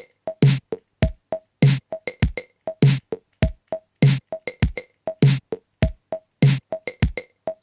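Electronic music: a drum-machine beat with short synth blips, a low kick about every half second or so.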